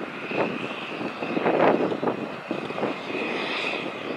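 John Deere 9R-series four-wheel-drive tractor engine running steadily under load while pulling a chisel plow through the soil, with a steady high whine over the engine drone.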